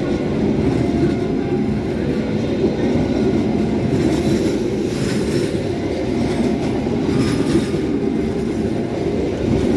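A long passenger train of stainless-steel coaches rolling past on the track, with a steady rumble of wheels on rails and some clickety-clack over the rail joints.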